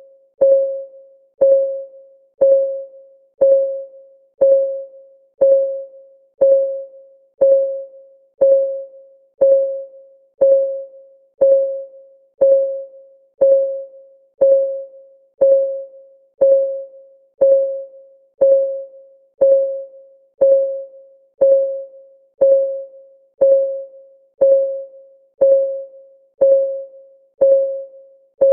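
Countdown timer's ticking sound: a short, pitched electronic tick on the same note, once a second, each one fading quickly.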